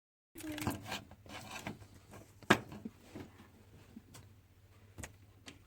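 Small handling noises on a workbench: rubbing and scraping with a few sharp clicks, the loudest about two and a half seconds in. The sound cuts in abruptly after a moment of dead silence.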